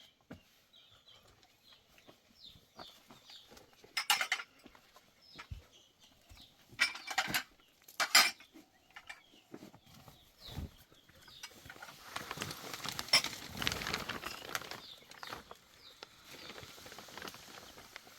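Intermittent sharp clinks and knocks, the loudest about four and eight seconds in, followed by a few seconds of scraping or rustling.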